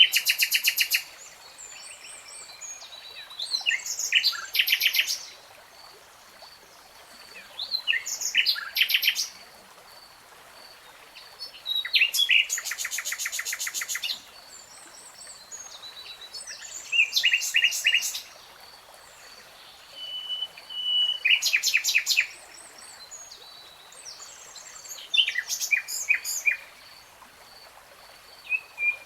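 Common nightingale singing: loud phrases of rapid repeated notes and trills, each one to two seconds long, coming about every four seconds with short pauses between. A faint, steady series of high pips runs underneath.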